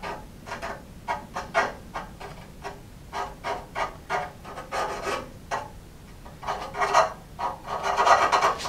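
Panel bond adhesive being spread and smoothed along a metal frame edge with a small hand spreader: a run of short, irregular scraping strokes, roughly two to three a second, busiest and loudest near the end.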